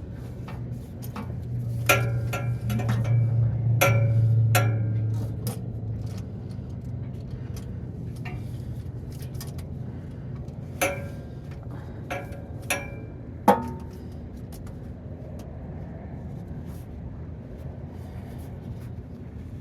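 Metal hand tools or parts clinking and briefly ringing, about seven times, while work goes on under a truck for an oil change. Beneath them a low steady hum swells a couple of seconds in and fades again.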